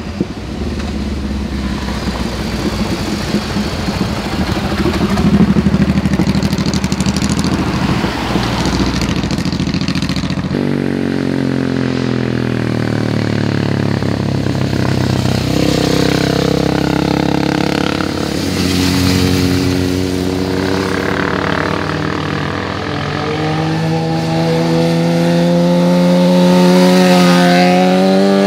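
Motorcycles riding through a hairpin bend one after another. First a deep, low engine note from a cruiser; then, after an abrupt change about a third of the way in, engines whose pitch falls and rises as riders roll off and pick up the throttle. Near the end a sport bike's engine climbs steadily in pitch as it accelerates out of the curve.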